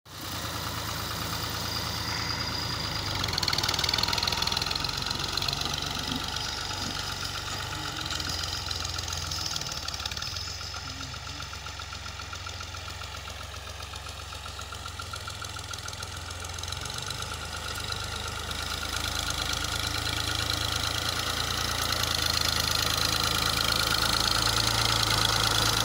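New Holland 480 tractor's three-cylinder diesel engine running steadily under load as it pushes soil with its front blade, fading somewhat in the middle and growing louder again toward the end as the tractor moves away and comes back.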